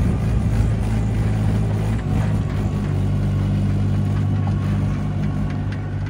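Mahindra 475 DI tractor's four-cylinder diesel engine running steadily while pulling a loaded trolley of earth along a dirt track.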